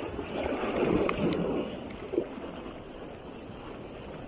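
Sea waves washing and splashing against shoreline rocks, with wind on the microphone; a wave surges loudest about a second in. A single sharp click sounds just after two seconds in.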